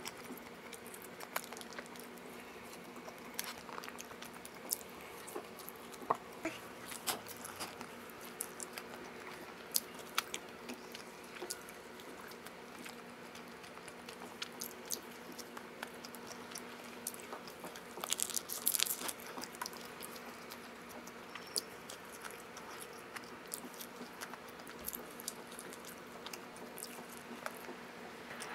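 Close-up eating sounds of leftover pizza being bitten and chewed: scattered small crunches and mouth clicks, with a brief louder flurry about two-thirds of the way through. A faint steady hum sits underneath.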